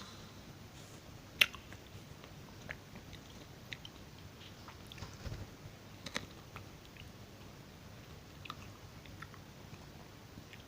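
Close-miked chewing of strawberries with yoghurt: faint, scattered mouth clicks and bites, the sharpest about a second and a half in.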